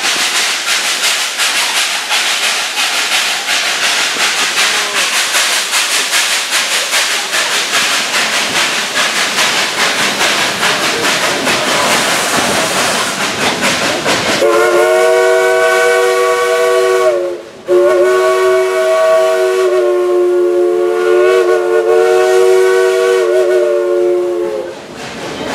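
Dollywood Express steam locomotive No. 192 heard from an open passenger car: the steady rushing clatter and hiss of the running train, then the locomotive's steam whistle sounds a chord of several notes in two blasts, a short one of about three seconds and then a long one of about seven seconds.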